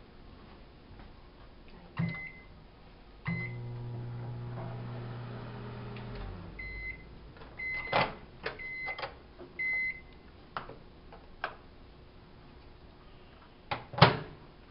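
Microwave oven: keypad presses, each with a short beep, then a low steady hum for about three seconds while it runs. A run of short beeps follows as the cycle ends, the door release clicks open about eight seconds in, and plastic containers knock down sharply near the end.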